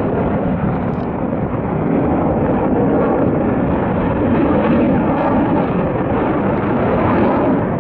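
USAF Thunderbirds F-16 fighter jet engine noise overhead, loud and steady.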